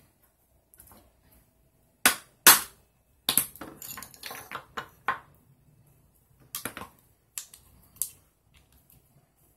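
Sharp clicks and clatter of small hand tools, a pointed pick and pliers, knocking against an Oakley X Metal sunglasses frame and the cutting board: two strong clicks about two seconds in, a run of clatter a little later, then scattered clicks near the end.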